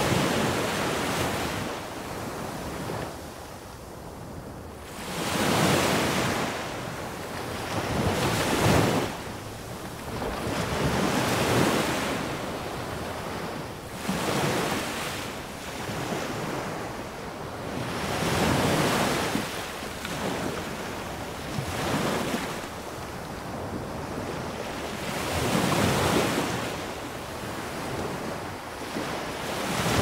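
Small sea waves breaking close by and washing up a sandy beach, coming in surges every three to four seconds, each swelling to a rush of foam and then ebbing.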